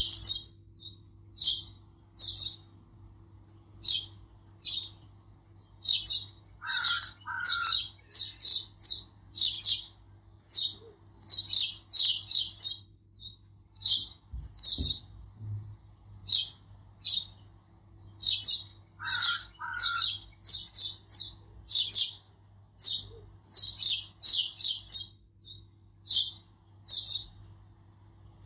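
Birds chirping: many short, high-pitched chirps in quick runs, with a lower two-part call heard twice, about seven seconds in and again near twenty seconds, over a faint steady low hum.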